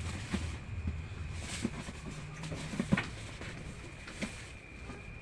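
A few scattered light taps and knocks with soft shuffling, over a faint steady high-pitched tone.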